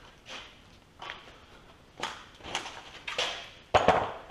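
Scattered knocks and rustles of engine parts being handled and set down, about six in all, the loudest near the end.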